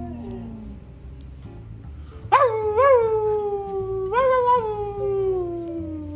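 Dog howling. A falling howl fades out near the start, then a second long howl begins a little over two seconds in, wavers up twice and slides slowly down in pitch.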